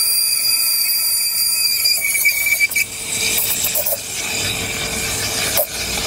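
Rocket Giotto Evoluzione V2 espresso machine's steam wand running with its tip submerged in milk in a stainless steel pitcher: a loud steady steam hiss with a high tone through it, the milk being heated.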